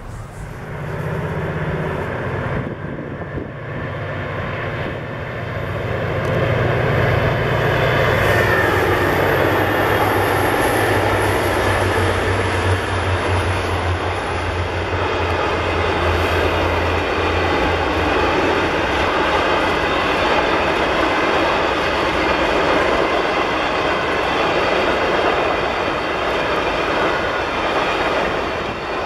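VIA Rail passenger train led by F40PH diesel-electric locomotives passing on a steel bridge. The locomotives' low engine drone is heard through the first half and fades out a little past the middle, while the steady rumble and clatter of the passenger cars rolling across the bridge carries on to the end.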